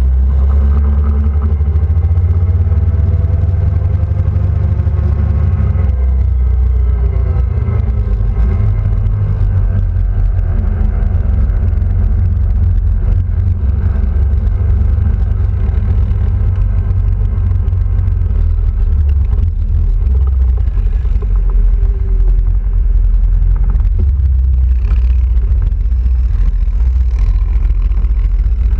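Quad bike engine running under way, over a heavy low rumble. The engine's pitch drops and then climbs again about a quarter of the way in.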